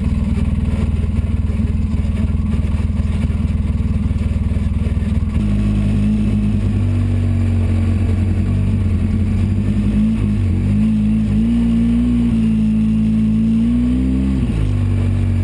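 Polaris RZR 800 side-by-side's twin-cylinder engine under way, heard from inside the cab. A rough low rumble for about five seconds changes to a steadier, higher engine note. That note wavers about ten seconds in, climbs slightly and drops back near the end.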